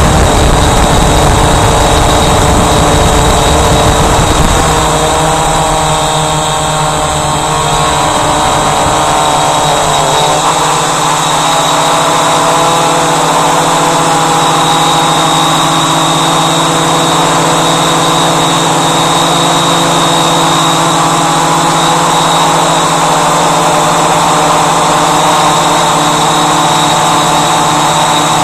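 Walkera Voyager 3 quadcopter's electric motors and propellers whining steadily, heard from the aircraft's own camera. Wind rumbles on the microphone for the first several seconds, and the pitch wavers a few seconds in before settling.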